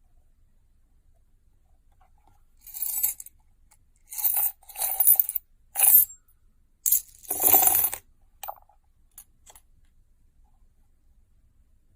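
Coins clinking and rattling in about six short jingles over some five seconds, the longest near the end of the run, then a few faint clinks.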